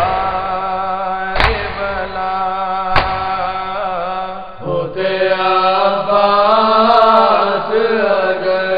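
A man's voice chanting an Urdu nouha, a Shia lament, in long held, wavering lines. In the first few seconds the singing is cut by sharp slaps about a second and a half apart, in the rhythm of matam chest-beating.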